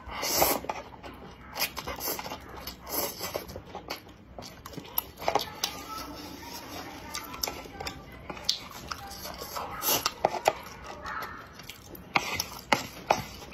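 Close-miked mouth sounds of eating spicy instant noodles: slurping and chewing, with wet smacks and soft clicks at irregular intervals.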